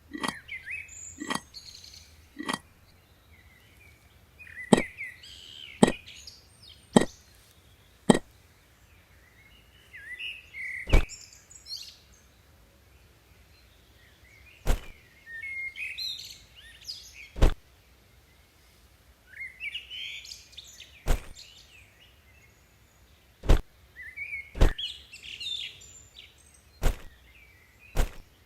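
Birds chirping, with sharp single knocks at irregular intervals of a second or two.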